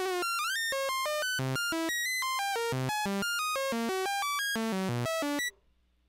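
Arturia ARP 2600 software synthesizer playing a fast run of short notes at random, unrelated pitches, about seven a second. This is the classic sample-and-hold effect, with the sample and hold stepping the oscillator's pitch. The run cuts off suddenly about five and a half seconds in.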